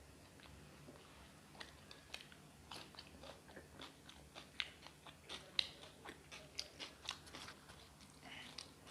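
A person chewing and biting food up close: a run of sharp, crunchy wet clicks, one to a few each second, with the loudest near the middle.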